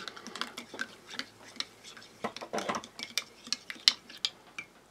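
A spoon clinking again and again against the sides of a ceramic mug while instant coffee is stirred, a run of small sharp clicks with a busier stretch a little over halfway through.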